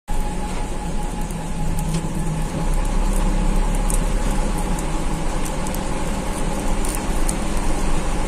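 Steady drone of a Mitsubishi-engined bus heard from inside the cabin as it drives: engine hum and road noise, with a thin steady whine and a few light ticks on top.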